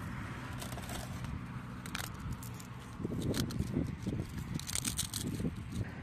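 Metal spoon clicking and scraping against a china bowl of abgosht while flatbread is torn and crumbled into the broth. From about halfway in, a run of louder soft, irregular thuds as the spoon mashes the food in the bowl, with a few more clicks near the end.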